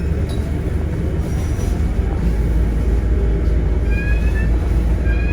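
Steady low rumble of a moving vehicle in city traffic. Two short, slightly rising high tones come near the end.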